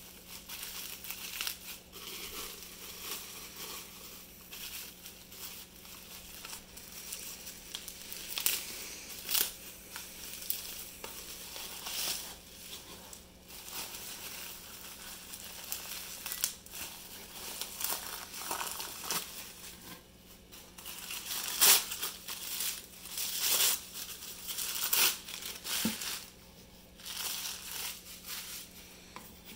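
Plastic bubble wrap and packing paper crinkling and crackling as drinking horns are unwrapped by hand, in irregular bursts of rustling with sharp crackles, the loudest about two-thirds of the way through.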